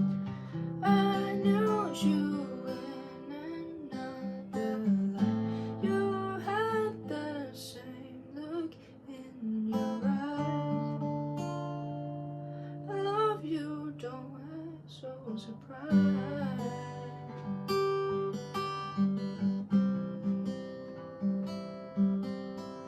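Acoustic guitar playing the song's chords in an outro, with a voice singing wordless phrases over it in places.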